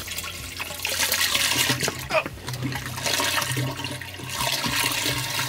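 Gray water from a campervan's sink tank rushing out of a ribbed drain hose into a dump-station drain, easing briefly about four seconds in.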